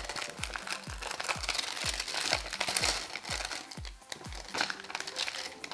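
Plastic and paper packaging crinkling as pink Patafix adhesive putty is handled and peeled off its backing sheet, over background music with a steady beat.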